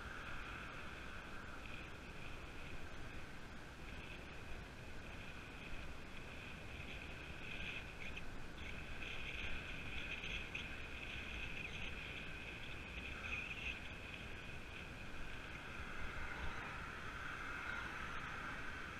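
Steady rushing wind and tyre noise of a road bike rolling along tarmac, heard through a camera riding on the bike or rider, with a low rumble underneath and a steady hiss a little stronger near the middle.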